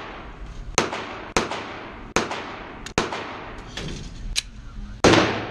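Gunshots echoing in an indoor shooting range: about seven irregularly spaced shots, the loudest near the end.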